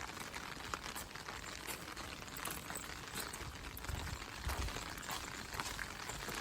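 Rain falling, a steady patter of drops with scattered small ticks, and a soft low rumble about four seconds in.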